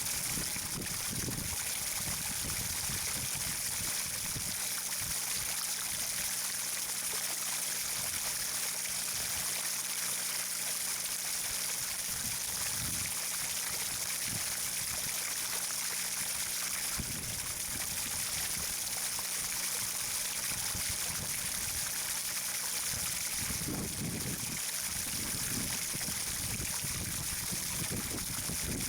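Steady rush of running water, an even hiss without a break, with a faint low hum underneath and a few soft low thuds.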